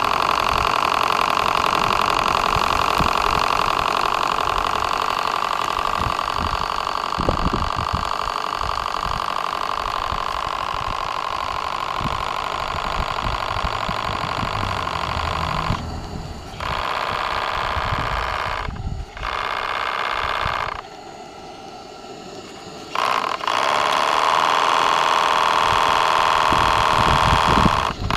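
Q series V-twin model steam engine running under steam with a steady hiss. The sound drops away briefly a few times about two thirds of the way through, once for about two seconds, then comes back at full strength.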